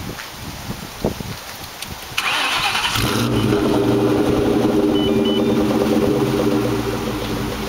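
2003 Ford SVT Cobra's supercharged 4.6-litre V8 cranked by the starter about two seconds in, catching after about a second and settling into a steady idle. Wind buffets the microphone throughout.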